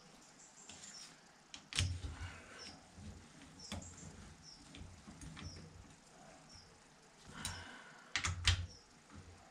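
Metal clicks and knocks of a wrench working the cylinder head nuts on a Fordson Major engine as the new head is pulled down. There are a few separate strokes early on and a quicker cluster of knocks near the end, which is the loudest part.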